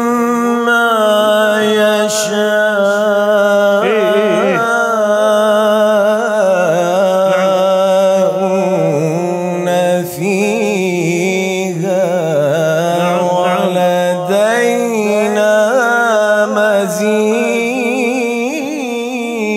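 A man chanting the Qur'anic verse 'lahum ma yasha'una fiha' (Qaf 50:35) in melismatic maqam-style recitation. He sustains long notes, ornamented with rapid wavering turns, with only brief breaks between phrases.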